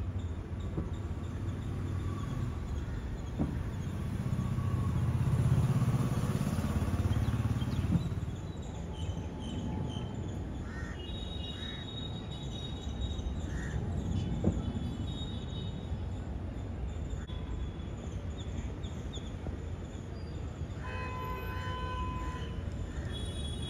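Distant city traffic: a steady low rumble that swells and fades over a few seconds, with short vehicle horn toots later on and a longer horn near the end.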